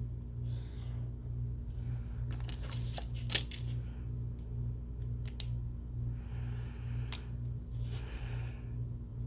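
Paper and sticker handling on a planner page: light rustles, a sharp click a few seconds in, and several short scratchy swishes, over a steady low pulsing hum.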